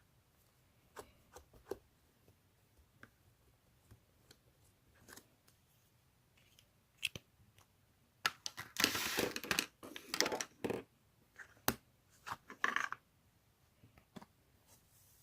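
Close handling noises: scattered light clicks and taps, then about five seconds of scraping and rustling strokes, the loudest in the middle of the stretch.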